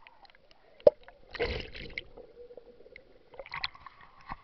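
River water splashing and gurgling around a camera at the water's surface in a rapid, with a sharp knock about a second in and scattered short splashes.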